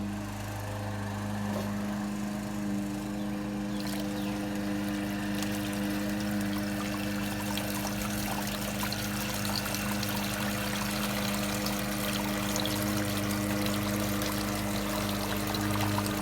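A steady low hum that holds one pitch throughout, with water trickling and splashing over it.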